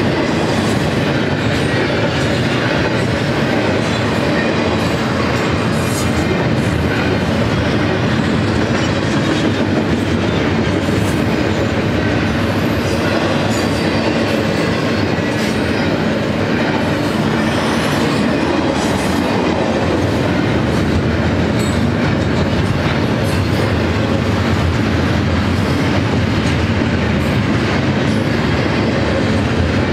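BNSF double-stack intermodal freight train rolling past, its loaded well cars making a steady rumble of wheels on rail with scattered clicks and clanks.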